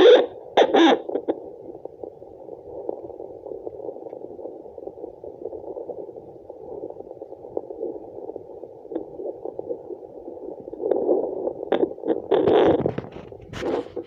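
Handheld fetal Doppler's speaker playing a muffled, pulsing whoosh of blood flow through the placenta. Loud scratchy bursts break in during the first second and again from about eleven seconds in.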